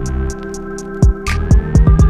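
Electronic background music with a steady beat: high ticks about four a second over a held bass, with a quick run of drum hits in the second half.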